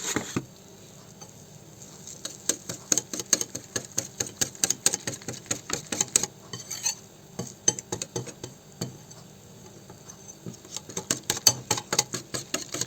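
Wire whisk beating a thin batter in a plate, its metal wires clinking rapidly against the dish as oat bran is mixed in. The clinking comes in two spells with a short break between them.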